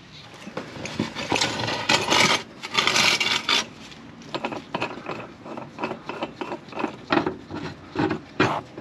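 A bottle jack being worked up under a vehicle's engine skid plate to take the plate's weight. Scraping for the first few seconds, then a run of short clicks.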